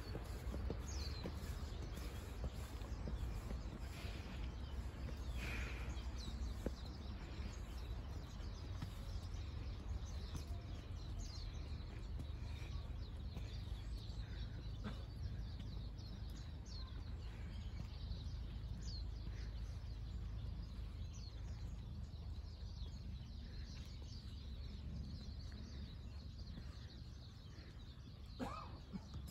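Small birds chirping now and then in a wooded park over a steady low rumble; a crow begins cawing near the end.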